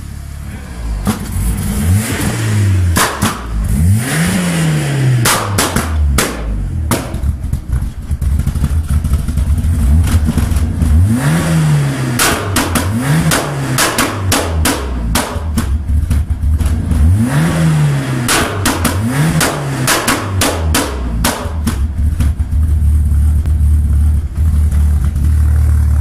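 Ford Escort RS Cosworth's turbocharged four-cylinder engine idling, blipped sharply about seven times, each rev rising and falling quickly. Bursts of loud exhaust pops and bangs follow the blips.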